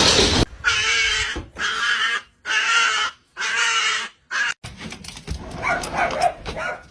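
A small dog vocalising back at its owner in four drawn-out, whiny howl-like calls, one after another, then going quieter.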